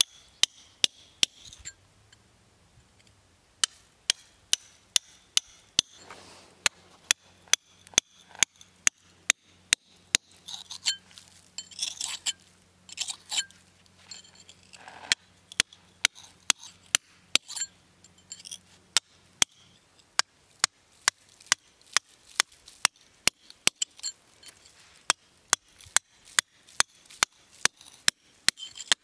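Steel chisel struck over and over with a hand hammer against a stone block: sharp metallic clinks about two a second, with a couple of short pauses. The chisel is cutting a row of wedge slots so the block can be split.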